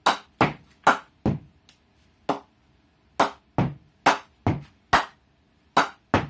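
A cricket ball bounced repeatedly on the face of a MACE Stinger willow cricket bat, about fourteen sharp knocks at roughly two to three a second with a short gap about two seconds in. This is a ping test of how the bat's willow rebounds the ball.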